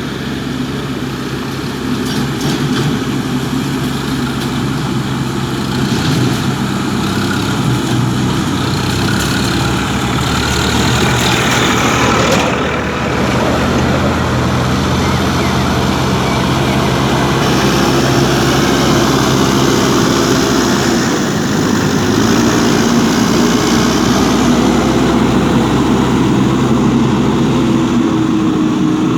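Backhoe loader's diesel engine running steadily as the machine works soil, with a few sharp knocks in the first seconds and a held whine joining from about halfway through.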